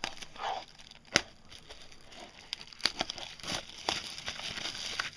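Card-box packaging crinkling and tearing as an Upper Deck Trilogy hockey card box is opened, with scattered sharp clicks and snaps.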